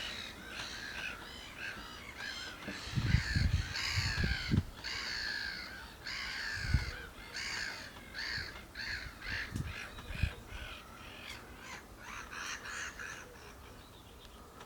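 Black-headed gulls calling over one another, a dense run of short harsh calls that thins out near the end. A few brief low thumps come around three to four seconds in and again later.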